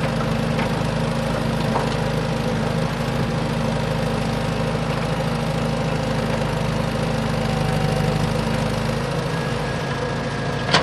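A motor running steadily at an even speed, a constant hum with no change in pitch.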